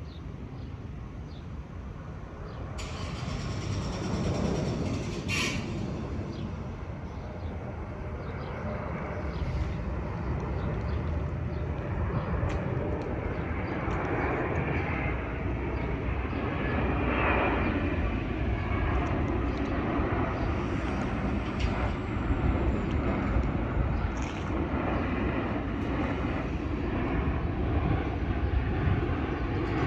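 Jet airliner landing: the rumble of its engines builds over a couple of seconds and then holds loud and steady, with a faint falling whine about two-thirds of the way through.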